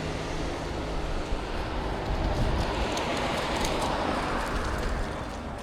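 A car driving past: its tyre and engine noise swells to a peak about four seconds in, then fades away.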